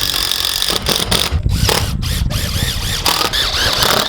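A power tool runs in short bursts with squealing and clattering, typical of steel-building work.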